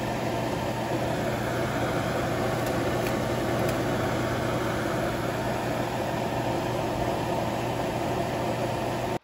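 Kitchen vent fan running steadily: an even rush of air with a low hum under it.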